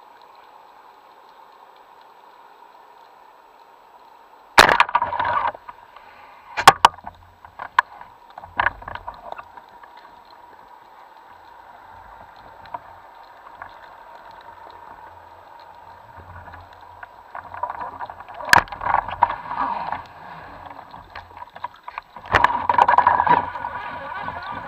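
Underwater sound from a spearfishing dive: a steady faint hiss with a thin hum, broken by several sharp clicks and knocks from the diver's gear and by short rushes of churning water, the loudest rush near the end.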